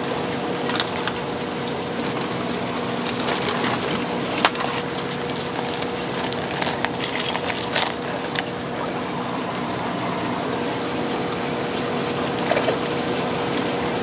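Steady rush of running water with a constant pump hum from the aquarium fish room's equipment, broken now and then by short crinkles and clicks of plastic fish bags being handled.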